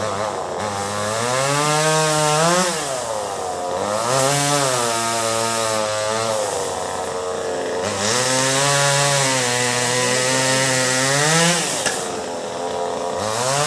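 Chainsaw cutting through melinjo wood. Its engine note sags and holds steady while the chain is in the cut, then rises sharply in short revs about every two to four seconds.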